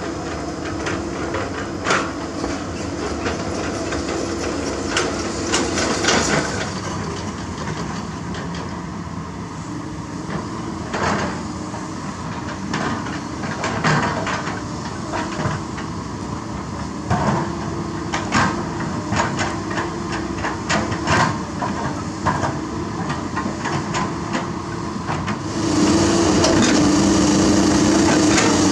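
Komatsu PC200 hydraulic excavator's diesel engine running steadily while it digs dirt, with repeated clanks and knocks of the bucket, rock and machinery. About 26 seconds in the sound steps up, louder and hissier.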